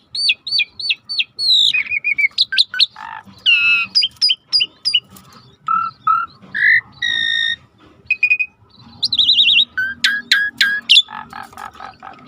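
Asian pied starling (jalak suren) singing a loud, varied song. It strings together repeated down-sweeping whistles, a held whistle and rapid trills and harsh chatters.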